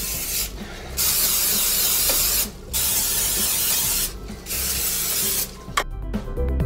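Aerosol cooking-oil spray can hissing in several long bursts with short pauses between, as the food is coated. Music starts near the end.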